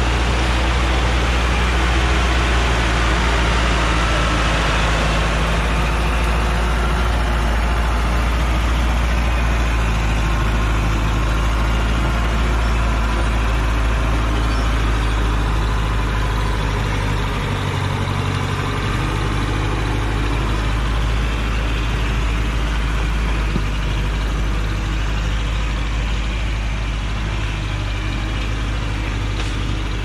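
Engine of a heavily loaded log truck running steadily under load as the truck crawls through soft mud on a steep dirt track. A louder rushing noise over the engine in the first few seconds then eases.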